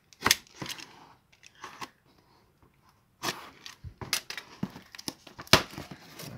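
Utility knife cutting through packing tape on a cardboard parcel, with crackling tape and short scrapes, then the box being turned over and handled with dense scraping and clicks of cardboard. A sharp knock about five and a half seconds in is the loudest sound.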